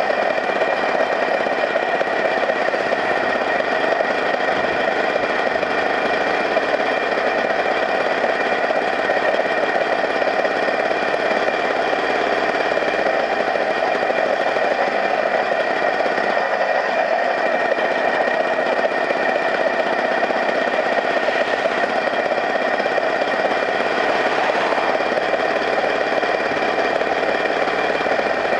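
A small engine running steadily at an even speed, with a constant whine over its noise.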